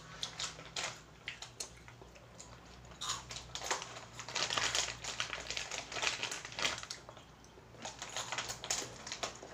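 Spicy Oishi snack being crunched and its plastic bag crinkling, in irregular clusters of sharp crackles that come thickest in the middle and again near the end.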